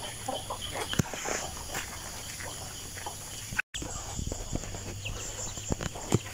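Outdoor yard ambience with scattered farm-animal sounds and small knocks over a steady faint high hiss; the sound cuts out completely for an instant about three and a half seconds in.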